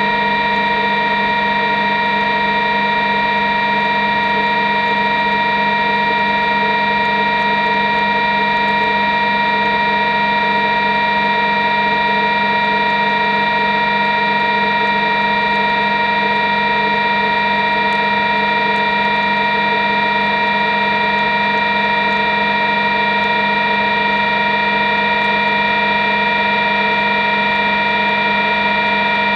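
A steady machine hum with several high whining tones over it, unchanging throughout.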